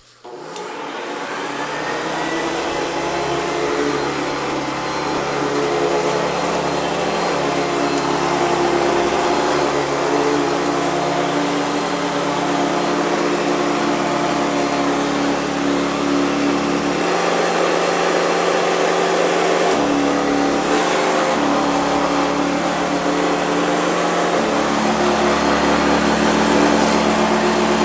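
Hoover Convertible upright vacuum cleaner switched on, its motor spinning up over the first couple of seconds, then running steadily at a constant pitch. It carries a vibration that the owner traces to the brush roll's brushes.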